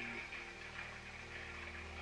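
A faint, steady low hum with a light hiss, and no speech: quiet room tone.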